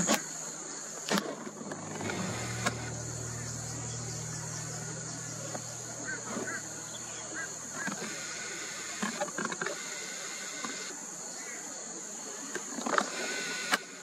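Insects buzzing steadily at a high pitch, with a low vehicle engine drone that comes in about two seconds in and fades out around nine seconds. A few sharp clicks stand out over it.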